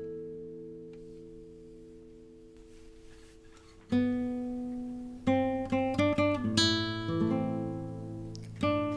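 Solo classical guitar. A chord rings and slowly fades for about four seconds, then a new chord is plucked, followed by a short phrase of single notes and another chord near the end.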